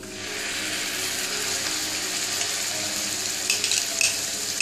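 Wet garlic and red-chilli paste hitting hot oil with cumin seeds in a small pan: a sizzle that starts suddenly as the paste goes in, then holds steady, with a few short clicks near the end. The water in the paste is spitting in the hot oil as it is tempered.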